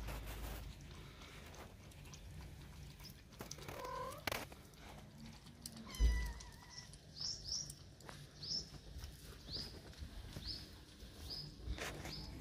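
Kittens mewing a couple of times while they feed, with a short low thump about six seconds in. From about seven seconds in a bird chirps repeatedly in the background, short high calls about once a second.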